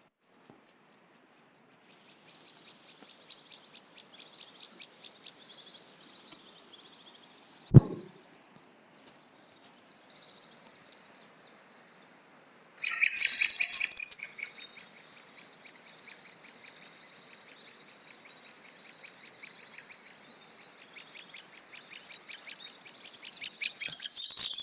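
Prenjak lumut song: rapid, high, repeated chirps and trills. They fade in, turn suddenly loud about halfway through, and keep trilling to a loud stretch near the end. This is the call used as an mp3 lure for trapping the bird. A single low thump is heard about eight seconds in.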